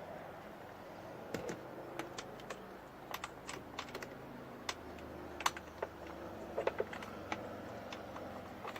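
Scattered, irregular small clicks and taps of a wiring harness and its plug knocking against plastic dash trim as it is fished through a hole by the fuse block, most of them after the first second.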